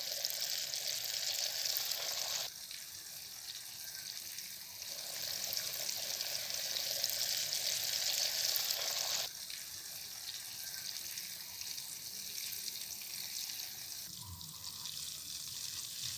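Coated chicken pieces deep-frying in hot oil: a steady sizzling hiss that turns abruptly louder or softer a few times.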